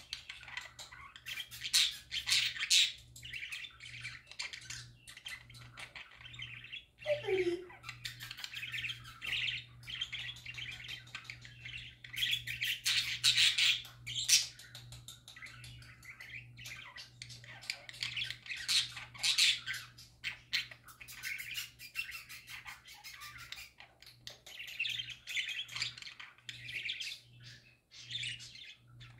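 Budgerigars chattering and warbling: a fast, near-continuous run of chirps, clicks and squawks with short pauses.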